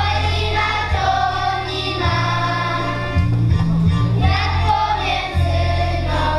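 A children's folk group singing a Polish folk song together over instrumental accompaniment with a steady bass beat.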